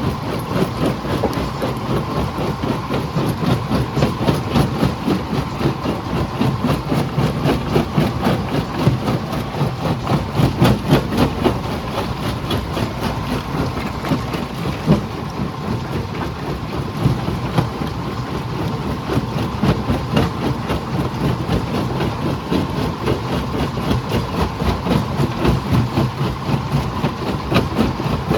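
Jaw crusher running and crushing rock: a steady mechanical rumble under a dense, unbroken clatter of stone cracking and knocking.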